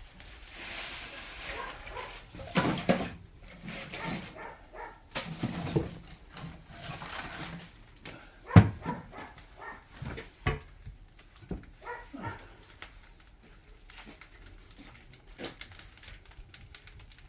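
Oak firewood burning in a traditional agungi firebox, crackling with scattered pops and snaps, and one sharp knock about eight and a half seconds in.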